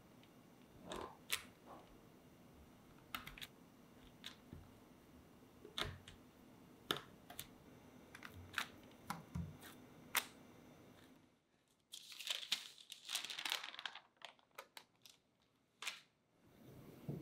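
A kitchen knife pressing down through a thin sheet of chocolate cookie dough onto parchment paper, scattered short taps and clicks as the blade meets the board. After a brief break, parchment paper crinkling and rustling as it is handled for a few seconds.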